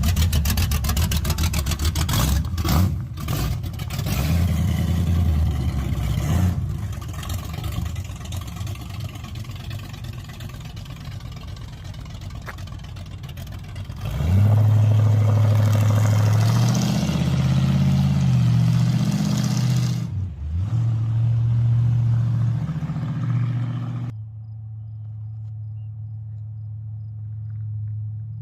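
454 big-block Chevy V8 of an '82 Camaro drag car with aftermarket exhaust, running loud and rough. About halfway through the revs climb and hold, then dip briefly. Near the end it settles into a steadier, quieter drone.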